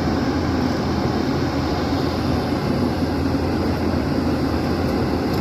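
Hyundai excavator's diesel engine running steadily, a continuous low mechanical rumble with no change in level.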